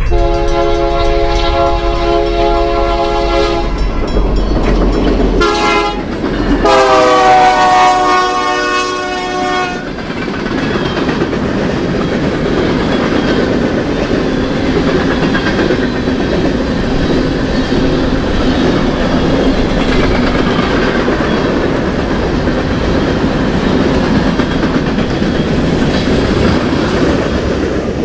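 BNSF freight locomotive's air horn sounding three blasts, long, short, long, with the last one dropping in pitch as it passes. After that, a freight train of covered hoppers rumbles steadily by, its wheels clacking over the rail joints.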